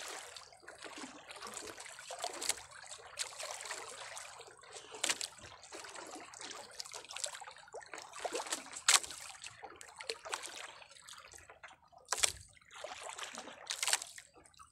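Seawater lapping and sloshing against the side of a small boat, in irregular splashes with sharper slaps every second or two.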